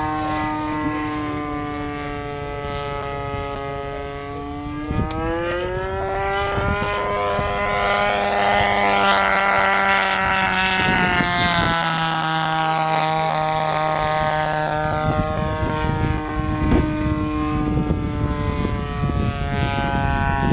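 DLE-20 single-cylinder two-stroke gasoline engine of an RC Sig P-51B Mustang in flight, turning a 16x8 propeller: a steady buzzing drone. Its pitch climbs about a quarter of the way in, holds high through a low pass over the field, then drops back about halfway through and settles.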